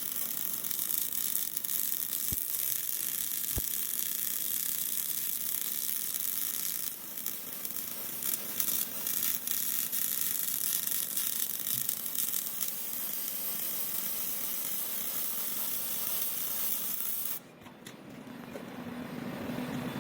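Robotic MIG welding arc on aluminium: a steady hissing sizzle, with a stretch of crackling in the middle, that cuts off suddenly near the end, after which a low hum builds.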